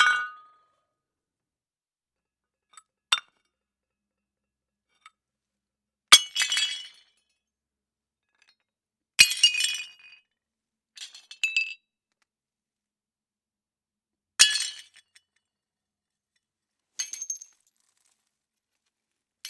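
Plates breaking one after another: about six separate smashes, each a sharp crash followed by a brief jingle of shards, with a few seconds of silence between them.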